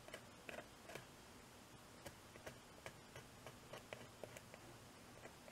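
Faint, irregular small ticks and clicks of a hobby knife blade scraping and catching on styrene plastic tubing, a few per second, over a quiet room.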